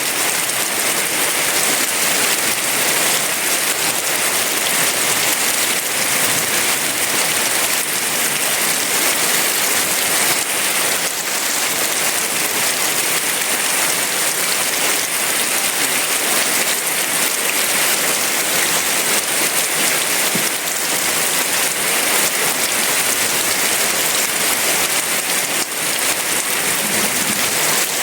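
Heavy rain falling steadily: a dense, even hiss of countless drops with no thunder.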